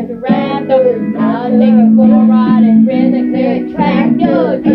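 Music: a song with a singing voice over sustained backing notes.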